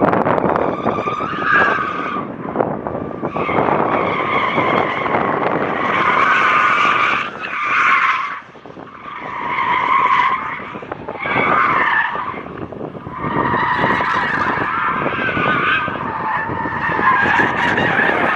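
Car tyres squealing in repeated stretches as the car is pushed hard through autocross corners, over heavy wind noise on the microphone. The squeal lets up briefly about halfway through.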